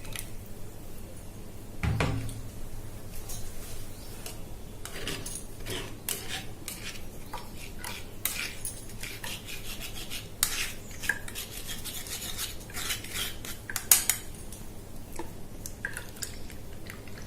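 Kitchen utensils scraping and clinking against a strainer as thandai is strained, in short irregular scrapes and clinks. There is a dull knock about two seconds in and a sharp clink near fourteen seconds.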